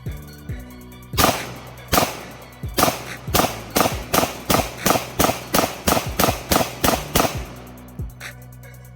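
About fifteen 9mm pistol shots from an Arex Delta L: three spaced shots, then a rapid string of about three a second that stops about seven seconds in. Hip-hop music plays underneath.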